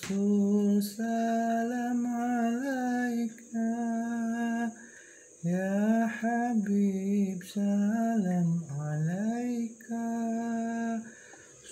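A solo voice singing shalawat, Islamic devotional chant, in phrases of long held notes with sliding, ornamented turns, separated by short breaths.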